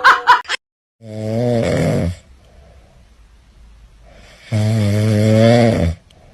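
A pet snoring: two long, loud, rasping snores about three seconds apart. A few sharp clicks come right at the start, before a brief cut.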